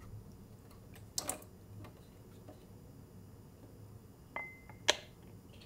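Three light clicks and knocks of a cold-brew pitcher's filter insert being handled and taken apart: one about a second in and two near the end, the first of those with a short ring.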